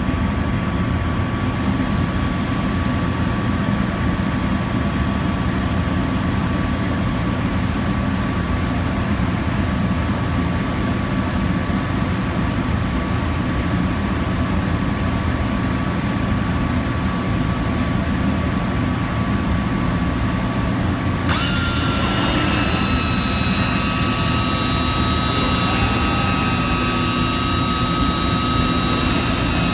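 1999 Thermwood Model 53 CNC router running: a steady machine hum with a thin whine. About two-thirds of the way through, higher-pitched whines with a hiss switch on abruptly and keep going.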